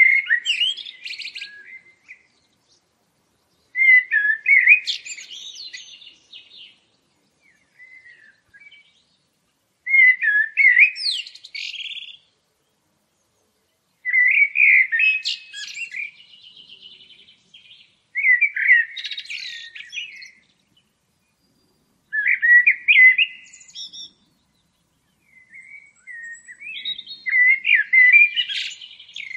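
A songbird singing: seven phrases of quick, gliding, twittering notes, each about two seconds long, a few seconds apart, with silence between.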